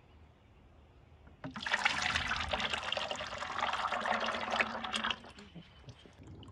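Thick white paint concentrate pouring from one plastic 5-gallon bucket into another, starting about a second and a half in and stopping about three and a half seconds later.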